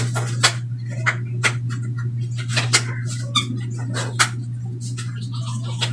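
Clean examination gloves being pulled onto the hands and adjusted: a string of short, sharp snaps and rustles, irregularly spaced, over a steady low hum.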